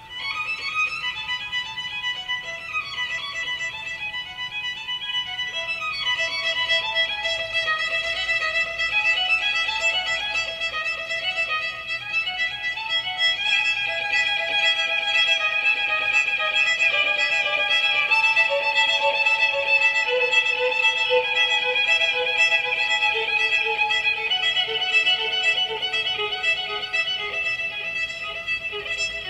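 Violin music: a melody of long held notes that comes in suddenly at the start, its lower line stepping gradually downward.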